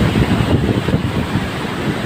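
Rushing floodwater, a steady churning roar, with wind buffeting the microphone in uneven gusts.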